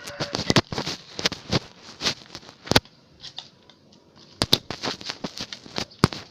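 A quick, irregular series of sharp taps and clicks. They thin out about three seconds in, then come thick again.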